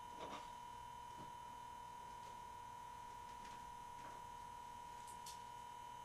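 Quiet workshop with a steady high-pitched tone throughout, and a few faint taps and knocks as a motorcycle fork leg is slid up into the triple clamps.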